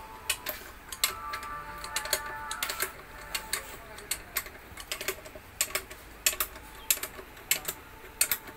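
Irregular sharp metallic clicks and taps from an Eicher 10.55 truck differential's crown wheel and pinion being worked by hand, the gear teeth and fittings knocking against each other as the gears are set.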